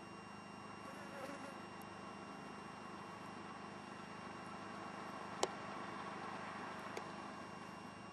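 Faint outdoor background noise with a steady hum, broken by a sharp click about five seconds in and a softer one about a second and a half later.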